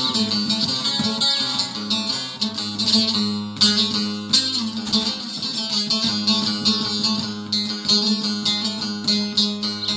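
Bağlama (saz) music: an instrumental passage of a Turkish folk song, fast plucked picking over a steady low note.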